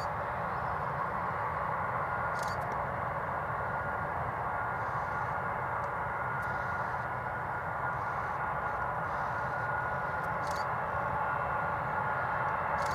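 Boeing 747-400's four turbofan engines running at taxi power: a steady hiss and rumble with a thin high whine held on one pitch, growing a little louder near the end.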